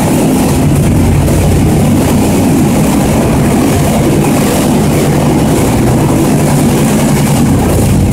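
Continental piston aircraft engine running steadily on a test stand, a loud, even drone with no change in speed.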